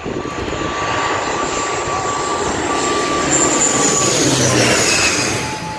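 ATR 72-600 turboprop airliner on landing approach passing low overhead. The sound of its engines and propellers builds to a peak about three to five seconds in, and a high whine drops in pitch as it goes over.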